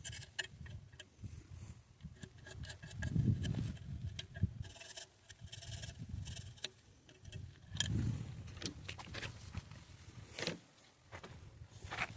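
Rubbing and scraping on small pistol trigger parts, with scattered light clicks and a few soft knocks from handling, sped up to double speed.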